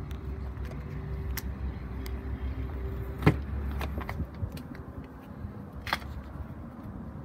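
Rear door latch of a crew-cab pickup truck clicking open sharply about three seconds in, with a lighter click near six seconds, over a steady low hum.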